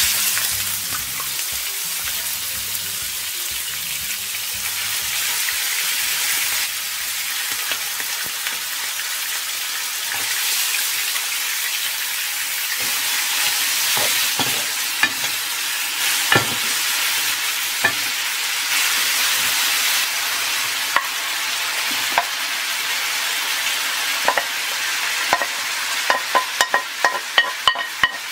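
Cubed beef liver frying in hot oil in a non-stick pan over high heat: a loud, steady sizzle that starts suddenly as the liver goes in. Sharp clicks of a wooden spatula stirring against the pan come in after several seconds and grow thick near the end.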